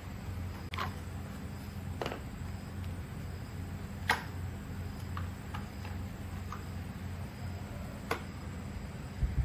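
Scattered light clicks and taps of parts and tools being handled during repair work, about seven in all, the sharpest about four seconds in, over a steady low hum.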